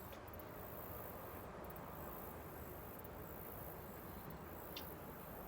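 Quiet outdoor ambience: a faint steady hiss with a high insect drone, and one short click about five seconds in.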